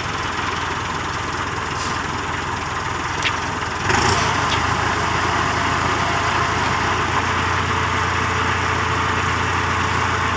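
Diesel engine of heavy equipment idling steadily. About four seconds in the sound changes abruptly and gets a little louder.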